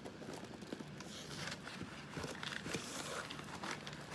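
Faint, irregular rustling and light clicks of packaging being handled during an unboxing.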